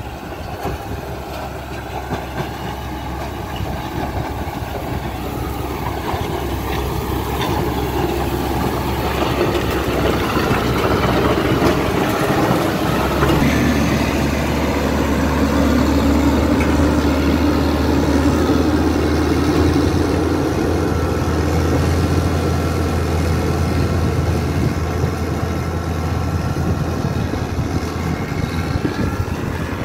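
Caterpillar 120K motor grader's diesel engine running steadily under load as the machine grades a gravel road, with a continuous gritty noise of gravel and dirt being worked. It grows louder as the grader passes close by about halfway through, then eases slightly as it moves away.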